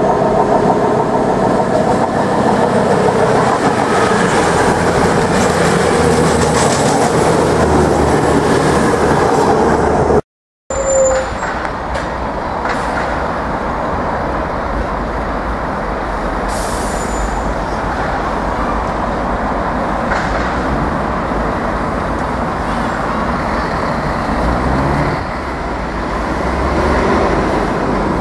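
A CrossCountry Voyager diesel multiple unit running through the station with a steady engine note. After a brief dropout, a South West Trains Class 444 electric multiple unit rumbles in over the pointwork, wheels clicking on the rails, with a rising whine near the end.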